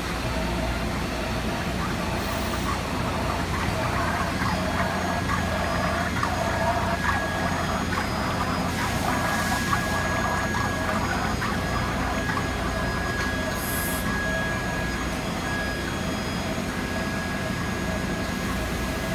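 Steady hum of running shop machinery, with a thin high whine that comes and goes from about four seconds in: the Mitsubishi EA8 sinker EDM system and its electric chiller under power.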